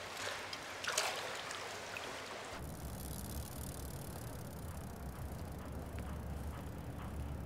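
Swimming-pool water splashing and lapping, with a short splash about a second in. About two and a half seconds in it cuts abruptly to a low, steady rumble of street ambience.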